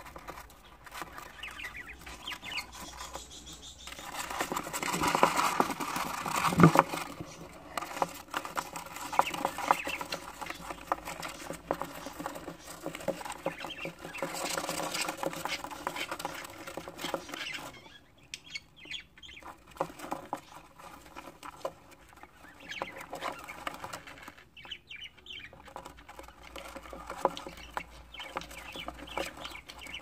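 Budgerigar chicks shuffling in a plastic nest tray: claws scratching and pattering on the plastic and shavings, mixed with their chirping, with a louder knock about six and a half seconds in.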